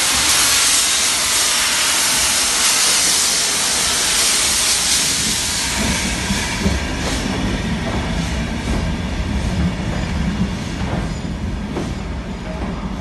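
LMS Jubilee class three-cylinder steam locomotive 45596 'Bahamas' moving off with loud, steady steam hiss from its open cylinder drain cocks. About five seconds in the hiss fades under the low rumble of the passing coaches and the regular clack of their wheels over rail joints.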